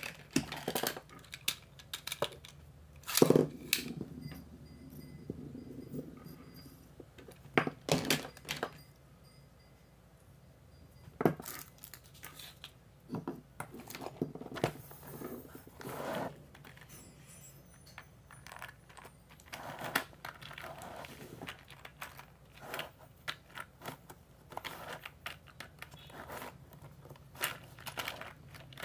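Small plastic and metal Beyblade parts handled and set down on a wooden desktop: scattered clicks, taps and knocks, with plastic wrapping rustling. Louder knocks come about 3, 8 and 11 seconds in.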